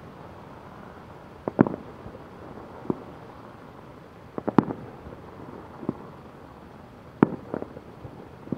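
Distant fireworks going off: a string of sharp bangs, some in quick clusters of two or three, about every one to two seconds over a steady background hiss.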